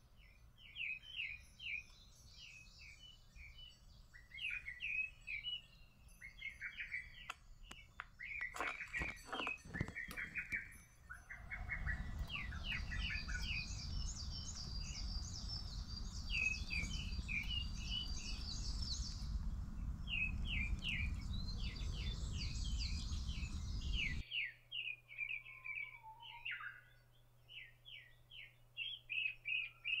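Small songbirds singing and calling in short repeated phrases. Midway a low rumble comes in suddenly and cuts off about twelve seconds later, with a fast high trill over part of it and a few sharp clicks just before it starts.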